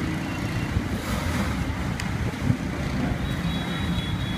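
Street traffic of passing motorbikes on a wet road: a steady low engine rumble with hiss. A sharp click comes about two seconds in, a short knock just after, and a faint high tone near the end.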